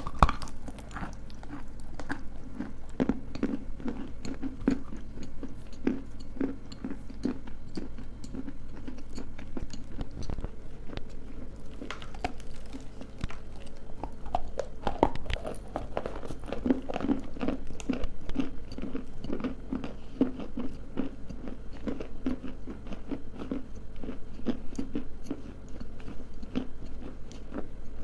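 Dry edible clay being bitten and chewed close to the microphone by two people: a continuous run of sharp, crumbly crunches, busiest a few seconds in and again past the middle.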